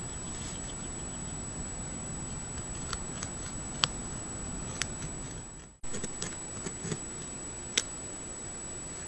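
A few sharp, scattered clicks, about one a second, of a beaver's teeth chipping at a tree trunk, over the steady hiss and faint high whine of a trail camera's microphone. The sound drops out briefly about six seconds in.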